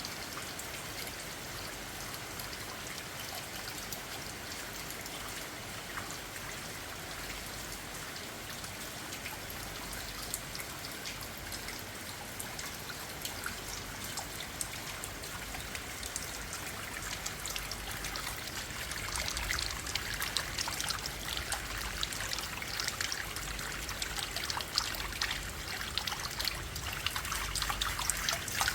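Night rain falling steadily, with water trickling and a patter of drops that grows heavier and louder in the second half.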